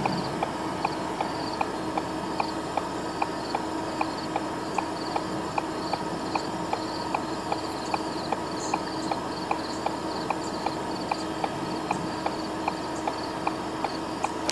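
Crickets chirping in a steady high pulse about twice a second, with an even sharp ticking about three times a second and a faint steady hum behind them.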